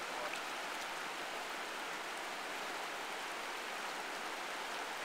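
A shallow river running fast over rocks: a steady, even hiss of moving water.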